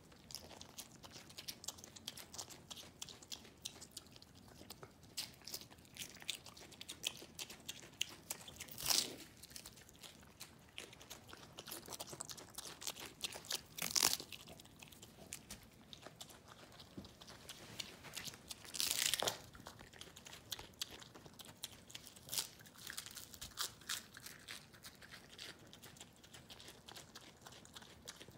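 Mini pig biting, crunching and chewing lettuce with quick, wet crunching clicks throughout, and three louder noises spread through.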